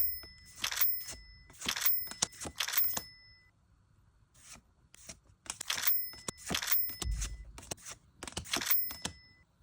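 Pokémon card packaging being handled and torn open: a string of short rustling, tearing sweeps about once a second, with a few sharp clicks and a quieter pause partway through.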